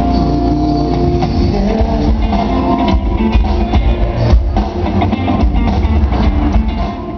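A live rock-style band playing loudly through a PA, led by strummed electric guitars over a drum kit with heavy bass.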